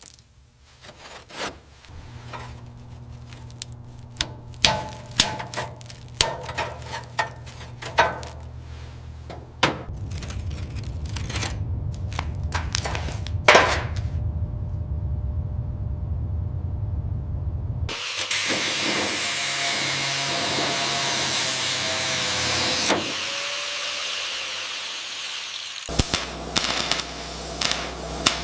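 A run of workshop power-tool sounds: a motor humming steadily under clicks and scrapes, then a steady hiss for several seconds about two thirds of the way in, then a burst of sharp clicks near the end.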